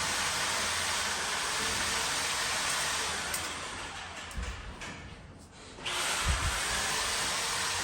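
Power tool running with a steady hiss. It fades away from about three seconds in and comes back abruptly near six seconds, with a couple of low thumps.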